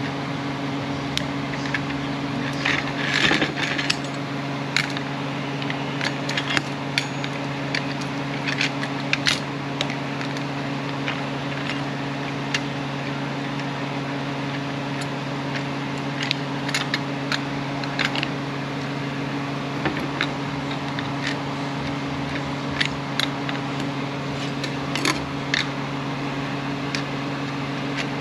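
Steel plates and friction clutch plates of a Ford 8F40 automatic transmission clutch pack being stacked by hand into the clutch drum, giving scattered light metallic clinks and clicks, over a steady hum.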